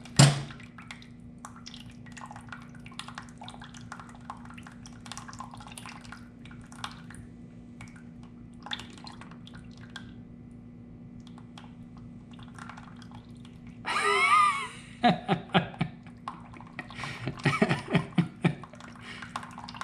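Water draining out of a 1978 Honda CB550 engine's oil drain into a pan, dripping and trickling: the crankcase holds clean water where the oil should be. Louder, uneven bursts of flow come in the last six seconds.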